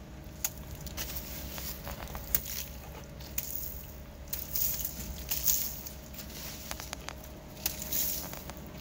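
Fine sand thrown by hand against a fresh cement wall, the grains pattering onto the wet render and the ground below in several short spells, with scattered light clicks.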